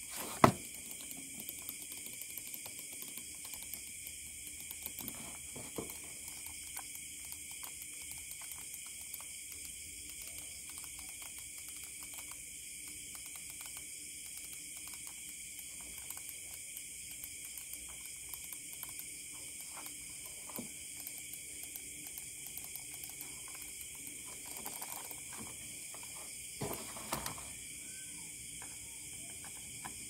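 Handling of an X5s Zeus plastic gaming mouse: one sharp click about half a second in, then scattered light clicks and knocks, with a short cluster near the end. A steady high-pitched background drone of several tones runs underneath.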